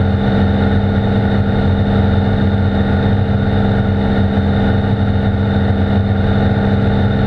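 Cirrus SR22's six-cylinder Continental piston engine and propeller droning steadily at climb power, heard from inside the cabin.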